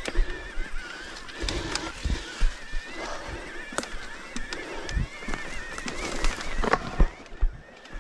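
Mountain bike ridden over a rough dirt trail: irregular knocks and rattles of the frame and wheels, with a wavering high-pitched squeal running throughout.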